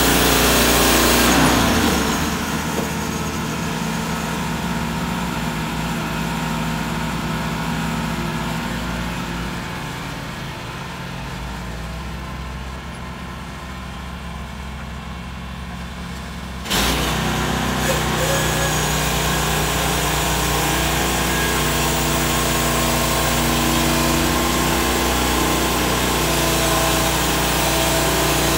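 The gasoline engine of a Woodland Mills HM130 portable bandsaw mill runs steadily without cutting. It drops to a lower speed about two seconds in, then picks up again abruptly past the halfway mark and runs steady.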